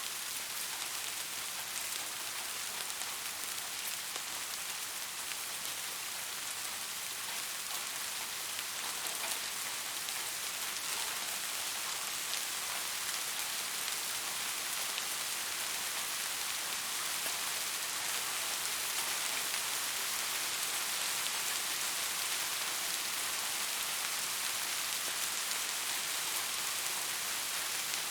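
Steady rain falling on hard surfaces: an even hiss with many small drop patters scattered through it.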